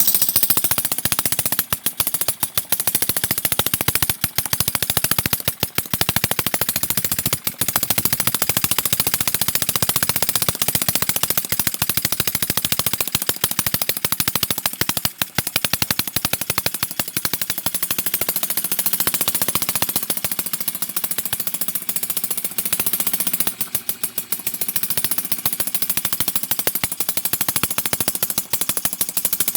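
Homemade two-stroke engine built from a refrigerator compressor's piston and cylinder, running fast as a rapid string of sharp firing pops, missing briefly now and then.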